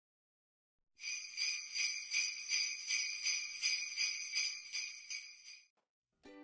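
Jingle bells shaken in an even rhythm, a little under three shakes a second, for about four and a half seconds, then stopping.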